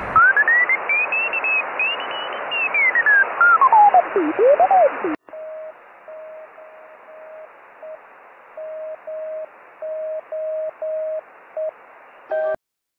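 Radio receiver audio with a band of hiss. For the first five seconds a whistle glides up and falls back down. Then a steady Morse code tone keys on and off in long and short elements, of the kind a fox-hunt (ARDF) transmitter sends, before the audio cuts off suddenly.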